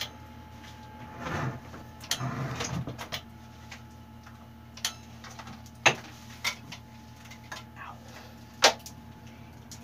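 Handling noises: rustling and shuffling a little after a second in and again around two to three seconds in, then a handful of sharp clicks and knocks spread out, the loudest two near the middle and near the end, over a steady low hum.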